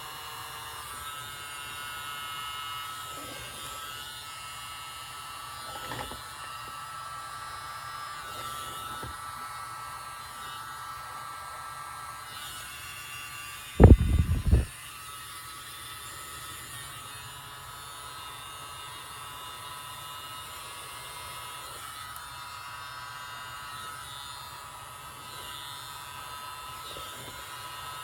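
A tiny battery-powered blower running with a steady high buzzing whine as it blows the paint. About halfway through, a short, loud knock.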